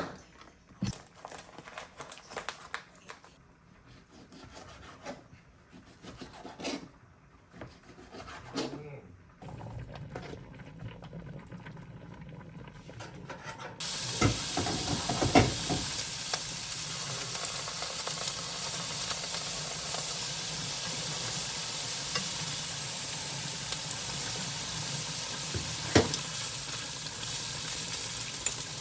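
Kitchen handling clicks and knocks, then about halfway through food goes into a hot pan and a steady sizzle of frying starts and keeps going, with the scrape and knock of stirring in the pan.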